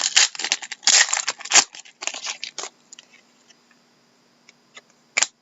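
Hockey trading cards being handled and flicked through: quick papery rustling and flicking for about two and a half seconds, then a few faint clicks and one sharper snap near the end.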